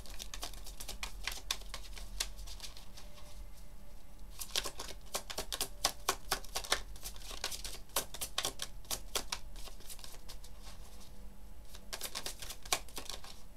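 A deck of cards being shuffled by hand: quick runs of light card-edge clicks in three spells, with short pauses between.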